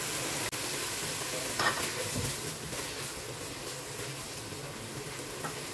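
Minced mutton sizzling steadily in a non-stick pot as water is poured in, then stirred with a spatula, with a knock of the spatula against the pot about a second and a half in.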